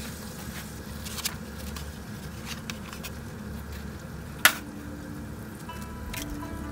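Food frying in a pan on a camp stove, a steady low sizzle and hiss, with a utensil clicking against the pan several times and one sharp knock about four and a half seconds in.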